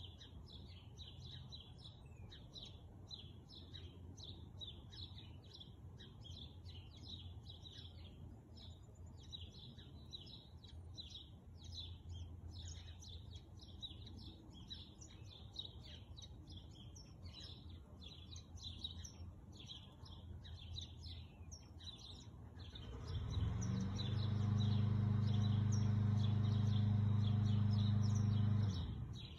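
Small birds chirping steadily in quick, high calls. About 23 seconds in, a loud, steady low-pitched hum starts and drowns them out; it stops suddenly about six seconds later.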